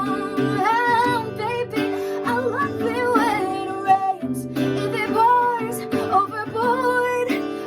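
Music: strummed guitar chords with a wavering melody line over them, in a passage without clear lyrics.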